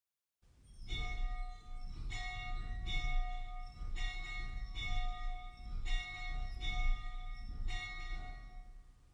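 Church bell tolling, about eight strokes roughly a second apart, each ringing on with a low rumble underneath.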